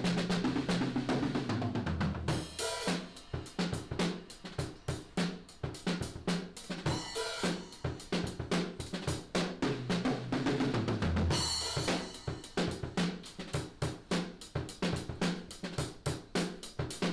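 Outro music: a fast, steady drum-kit beat with snare, kick drum and cymbals over a bass line.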